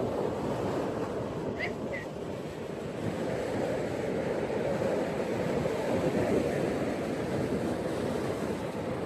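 Ocean surf washing onto a beach as a steady rushing noise that swells a little past the middle, with two brief faint high chirps about one and a half to two seconds in.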